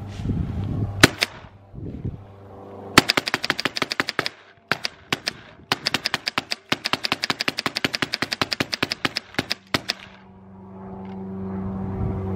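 Rightfeed Autococker paintball marker firing: a single shot about a second in, then rapid strings of semi-automatic shots at roughly eight a second, with short pauses between strings.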